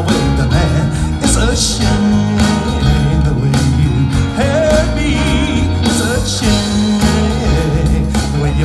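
Live rock band playing amplified on stage: electric guitars and keyboard over a steady bass line and beat, with a singer's voice.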